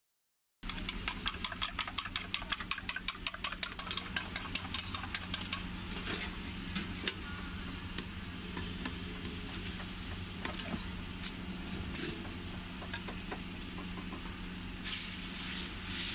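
Flat dough wrap frying on a hot iron griddle (tawa): a steady sizzle, with a metal spatula tapping and scraping against the griddle in rapid clicks over the first few seconds. Near the end the sizzle grows louder as oil is poured onto the wrap. A steady low hum runs underneath.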